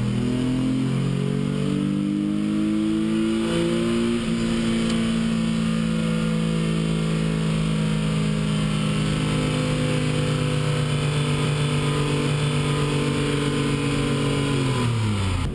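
Mazda 323's swapped KLZE 2.5-litre V6, through headers and a stock MX-3 V6 exhaust, at full throttle on a chassis dyno with the nitrous shot engaged, heard from inside the cabin. The revs rise with a brief break about four seconds in, then climb steadily for about ten seconds in one long pull. Near the end they drop away quickly as the throttle is lifted.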